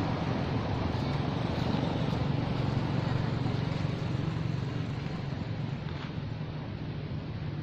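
A steady low rumble of background noise, easing off slightly in the second half.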